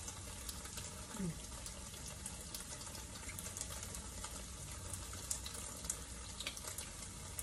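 Udon noodles frying in oil in a pan on high heat: a steady, soft sizzling hiss with scattered small crackles.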